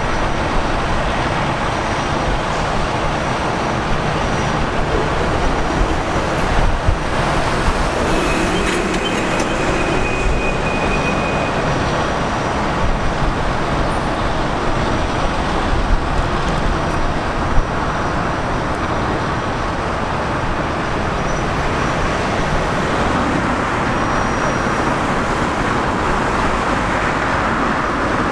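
Steady road traffic noise from vehicles passing on the nearby highway.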